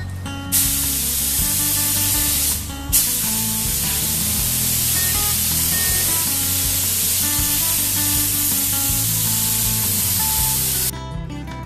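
Compressed-air gravity-feed spray gun hissing as it sprays finish onto a wooden tabletop. There is a short first pass, a brief stop at about two and a half seconds, then a long steady spray that cuts off just before the end. Acoustic guitar music plays underneath.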